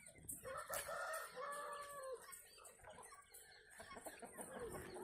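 A desi (country) rooster crowing once, a long held call starting about half a second in and dropping in pitch at its end, with hens clucking and a shorter falling call near the end.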